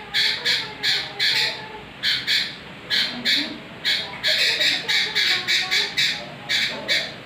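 Sooty-headed bulbul (kutilang) calling busily: a quick run of short, separate notes, about two or three a second, in uneven clusters.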